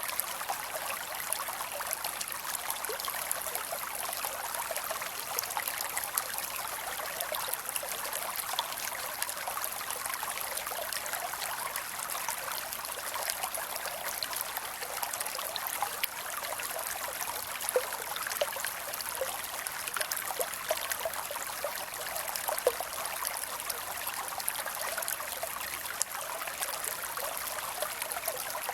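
Creek water running and trickling steadily, with a constant bubbling rush and small splashes throughout.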